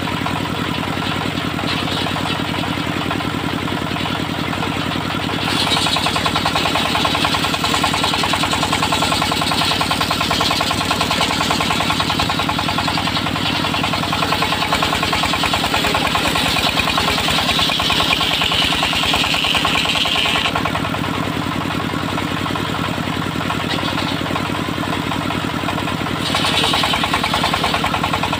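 Engine of a homemade circular sawmill running steadily, with the saw blade cutting through a log in two stretches: a long one from about five seconds in to about twenty, and another starting near the end, each adding a louder, hissing rasp over the engine.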